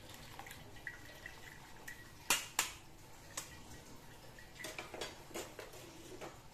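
Stainless wire skimmer knocking against a steel wok as blanched vegetables are scooped out of the water and tipped into a plastic basket, with a little water dripping. Two sharp clinks come a little past two seconds in, then a few lighter knocks near the end.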